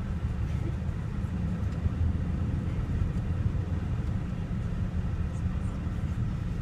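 Steady low rumble of vehicle noise, with no clear separate events standing out.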